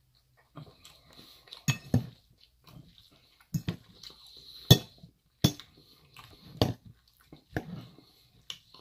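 Metal fork clinking and scraping against a large white salad bowl in several sharp clinks, the loudest near the middle, with chewing of salad between them.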